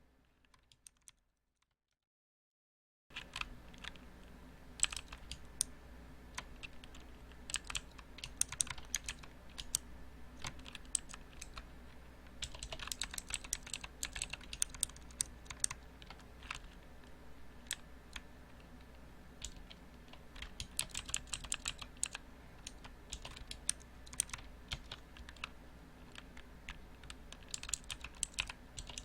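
Typing on a mechanical keyboard: clacking keystrokes in quick runs with short pauses between them. It starts after about three seconds of near silence, with a low steady hum underneath.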